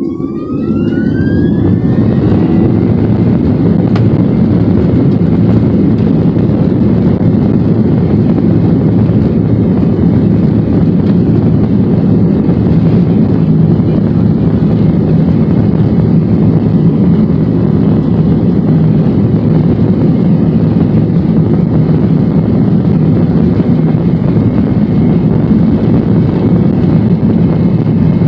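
Boeing 737-900ER's CFM56 turbofan engines spooling up to takeoff thrust, heard from inside the cabin: a whine rises over the first couple of seconds, then a loud, steady, deep engine roar holds through the takeoff roll.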